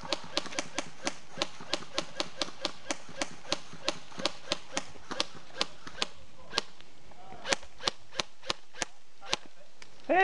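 Airsoft guns shooting: a steady string of sharp pops about four a second, turning to slower, irregular single shots after about six and a half seconds.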